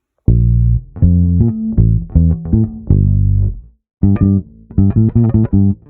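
Music with a deep bass line of separate notes, starting a moment in and breaking off briefly about two thirds through before going on.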